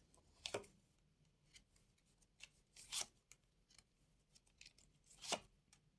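Playing cards being drawn and laid down: three short, soft snaps about half a second, three seconds and five seconds in, with near silence between.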